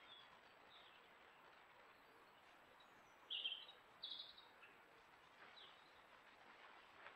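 Faint outdoor background hiss with a few short bird chirps, two louder bursts of quick chirping about three and four seconds in.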